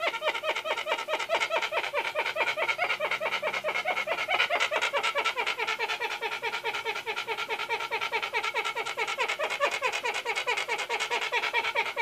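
Hornbill calling in a rapid, unbroken string of short rising notes, several a second, that gets a little faster partway through.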